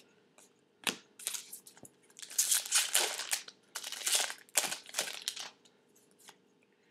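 A trading-card pack's foil wrapper being torn open and crinkled in the hands: a run of rustling, crinkling bursts starting about a second in and stopping shortly before the end.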